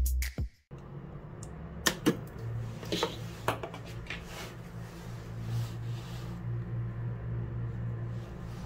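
Cooling fan of a home-built capacitor spot welder running with a steady low hum, with a few sharp clicks about two to four seconds in.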